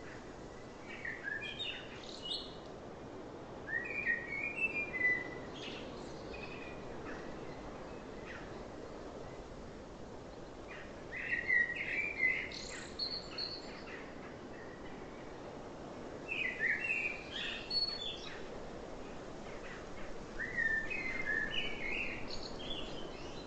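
Birdsong: five short phrases of quick chirping notes, a few seconds apart, over a steady low background hiss.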